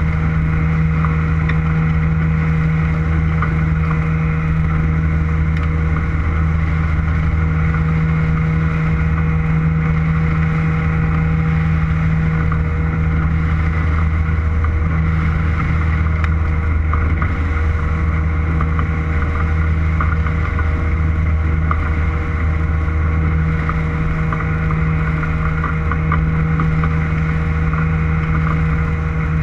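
Boat motor running steadily at a constant speed: an even, unchanging low drone.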